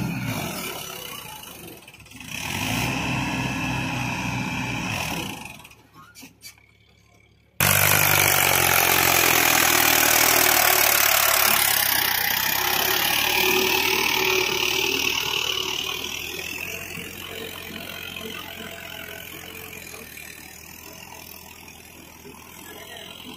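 Diesel engine of a Mahindra Arjun tractor running steadily. It drops almost to silence for about a second and a half around six seconds in, comes back suddenly loud, then slowly fades.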